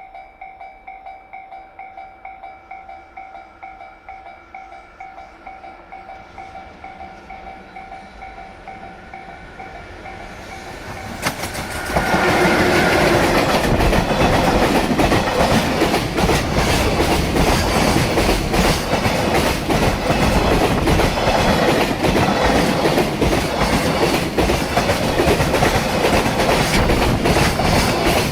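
Level-crossing bell dinging steadily. About twelve seconds in, a JR Freight EF66 electric locomotive and its container wagons arrive and pass close by, loud, with a heavy rhythmic clatter of wheels over the rail joints.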